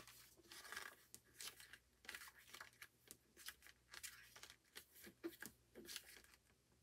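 A paper digipack album case and its contents being handled and opened: a string of short, faint rustles and crinkles of paper and card.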